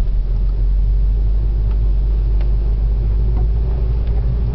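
Cabin sound of a SEAT León 1.8 TSI turbocharged four-cylinder petrol car under way: a steady, heavy low rumble of engine and road with a faint even engine tone above it, no revving.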